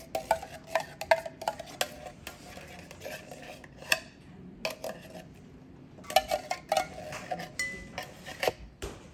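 A metal spoon scraping and clinking inside a tin can, scooping out thick peach pie filling: runs of quick scrapes and taps with a metallic ring, busiest at the start and again in the last few seconds.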